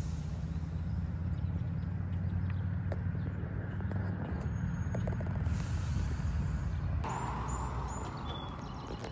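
Low, steady rumble of a garbage truck's diesel engine. About seven seconds in, the rumble eases and a hiss comes in, with a few short high chirps.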